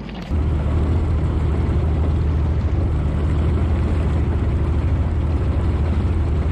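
Small boat's outboard motor running steadily at low speed, a loud, even low hum that cuts in suddenly just after the start.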